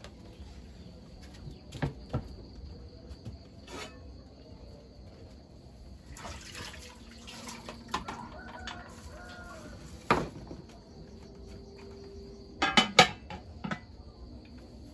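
Water splashing and several sharp knocks and clatters of kitchenware during food preparation, the loudest a quick cluster of knocks near the end.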